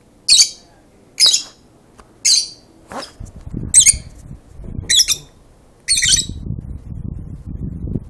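Peach-faced lovebirds giving loud, shrill squawks, six short calls about a second apart. A low rumble runs under the later calls.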